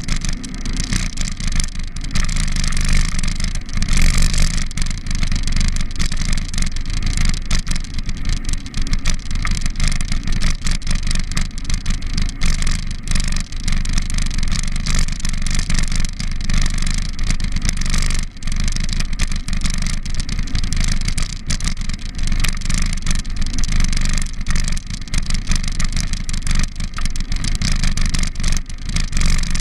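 Steady rumble and constant small rattles from a camera riding on a moving bicycle along a paved cycle path: road vibration, tyre noise and wind on the microphone.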